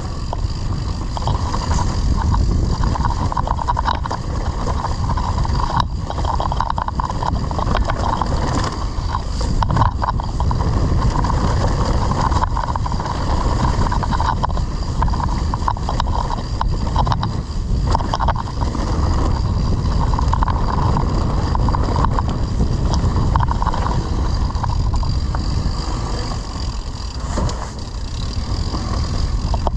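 Mountain bike riding noise on a camera: heavy wind buffeting on the microphone, tyres on dirt and rattling of the bike, with scattered small knocks.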